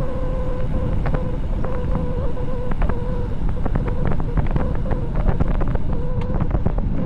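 Heavy wind buffeting on the microphone of a bicycle descending at speed, with a steady wavering hum and scattered small clicks and rattles.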